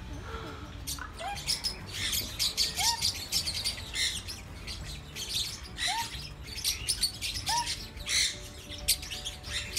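A flock of budgerigars chattering in an aviary: many quick high chirps, with a short rising call repeating every second or so.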